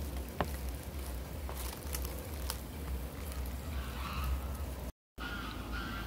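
Outdoor ambience: a steady low rumble of wind and handling on a phone microphone, a few light clicks, and faint bird calls toward the end. The sound drops out completely for a split second about five seconds in.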